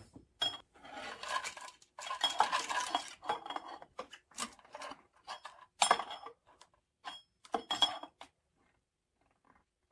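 Steel cam timing chain of a Yamaha 1.8L watercraft engine clinking and rattling against the sprocket and head in irregular bursts as it is handled while the engine is turned by hand toward top dead center on number one. Some clinks carry a short metallic ring, and the rattling stops about eight seconds in.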